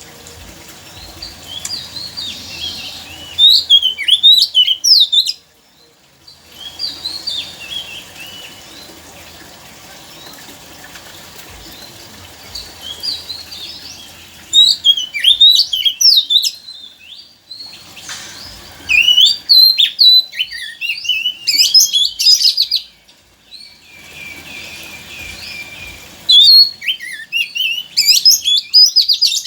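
Oriental magpie-robin (kacer) singing: four loud bursts of rapid, varied whistles and chattering phrases, with quieter scattered chirps between them over a faint steady hiss.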